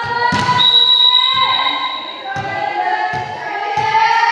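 Several voices chanting or cheering in long, held high-pitched notes, with about five dull thuds in between.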